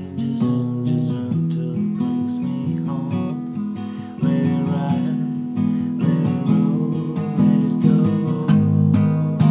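Acoustic guitar strummed in a steady rhythm over layered guitar parts from a loop station, in an instrumental passage with no singing. A fuller low part comes in near the end.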